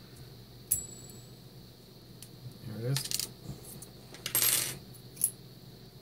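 Small metal lock parts clinking and scraping as a Mul-T-Lock Interactive cylinder is taken apart: a sharp ringing clink about a second in, then two sliding metal scrapes and a last light click as the core is worked out of the cylinder body.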